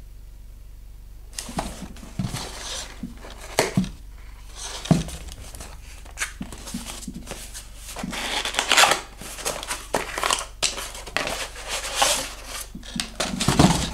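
Kraft cardboard box being opened by hand: the cardboard rustles, scrapes and tears as the flaps are pulled apart, with a few sharp snaps, busiest in the second half.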